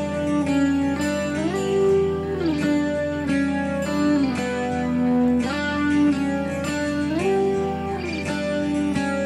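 Background music led by guitar, its held notes sliding up and down between pitches.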